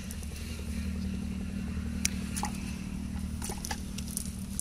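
A motor running steadily at an even pitch, with scattered small clicks and crackles as hands pick through a cast net strewn with snail shells.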